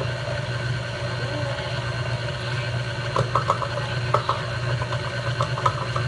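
Tilt-head electric stand mixer running steadily, its motor humming as the beater churns a thick, stiff batter in a steel bowl. Light clicks come in over the hum in the second half.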